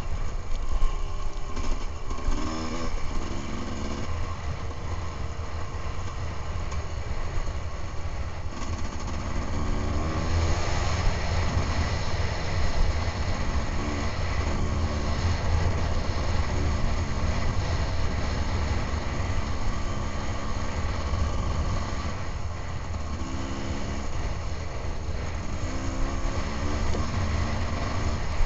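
Enduro dirt bike's engine heard from on board while riding a trail, revving up in short climbs and easing off again several times over a steady low rumble.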